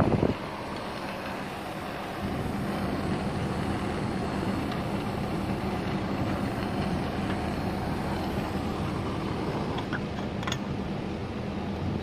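Steady low hum of a Panasonic 2.5 hp split air conditioner's outdoor unit running, getting louder about two seconds in, with a few light ticks near the end.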